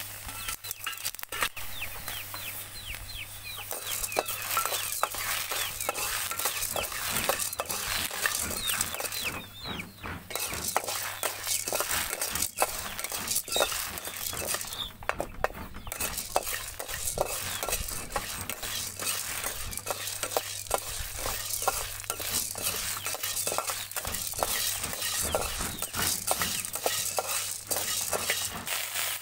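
Black beans dry-roasting in a steel wok, stirred with a metal spatula: repeated scraping of the spatula on the pan and rattling of the beans. Chickens cluck in the background.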